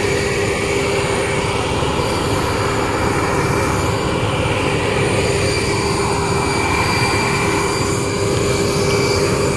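Steady aircraft noise on an airport apron: an even roar with a constant high whine, from parked jet airliner equipment such as a running auxiliary power unit.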